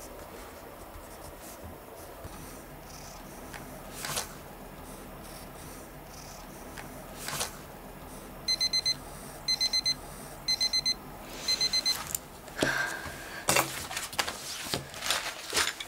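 Digital timer alarm going off as the countdown reaches zero: four quick groups of four high beeps, about a second apart, marking the end of the work session. Before it, faint pen-on-paper writing; after it, rustling of a book and papers being handled.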